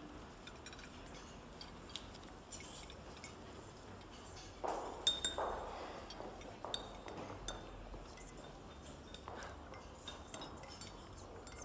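Cutlery and glassware clinking lightly and irregularly on plates, with a few short scraping or rustling noises in the middle.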